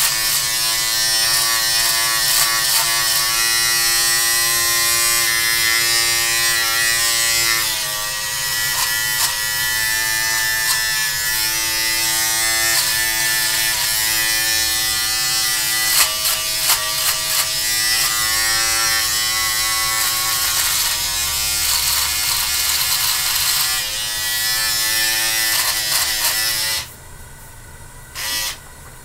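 Electric beard trimmer buzzing as it cuts through a full beard, with scratchy clicks and its pitch shifting now and then. It switches off about 27 seconds in, then buzzes once more briefly near the end.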